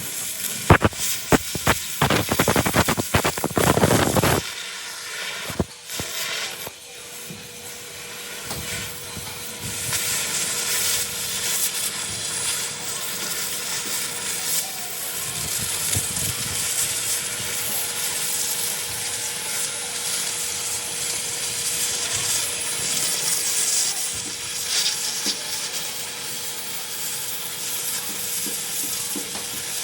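Welding arc hissing and sizzling steadily, after a few seconds of loud, rapid, crackling clatter at the start.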